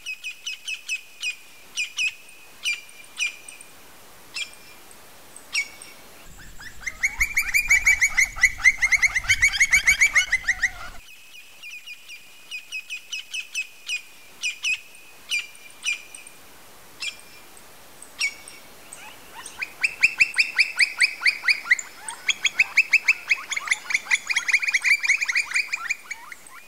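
Campo flicker calling. A string of single high, ringing notes, about one or two a second, breaks twice into long, fast runs of louder notes, once about a quarter of the way in and again through the last third.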